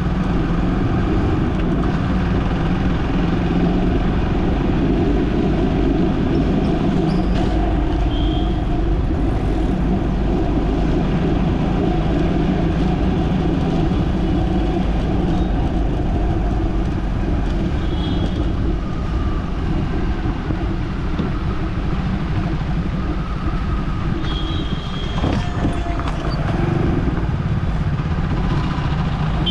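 Steady low rumble of a car driving through city traffic: engine and road noise, with a few short high-pitched tones now and then.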